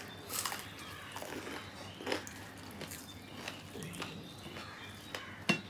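Eating sounds of people eating rice and curry with their hands: chewing, mouth smacks and fingers working rice on plates. Scattered soft clicks, with a sharp click near the end the loudest.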